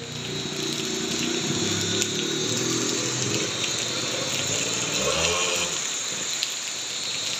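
Kawasaki Ninja RR two-stroke engine pulling away and fading as the bike rides off. A steady hiss of rain and wet road carries on under it.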